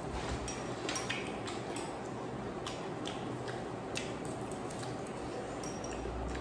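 Chopsticks clicking and tapping against a small porcelain bowl while eating: a scattering of light, sharp clicks, several about a second in and more through the middle, over a steady background noise.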